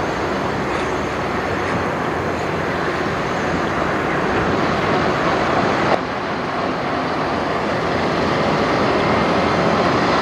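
Freightliner Cascadia semi truck's diesel engine running as the rig pulls a loaded flatbed trailer slowly across a lot, a steady drone. The sound shifts abruptly about six seconds in.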